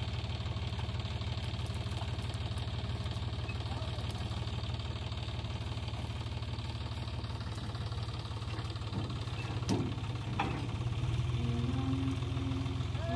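Tractor diesel engine idling steadily with a fast, even knocking beat.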